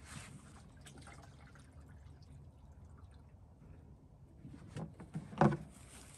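Water pouring and trickling from a plastic watering can into the drinking troughs of pigeon transport crates, strongest in the first second and fading after. A single loud knock about five and a half seconds in.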